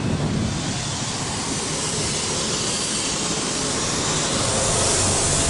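ED4M electric multiple-unit train at a platform: a steady rumbling noise with a hiss over it, growing slightly louder.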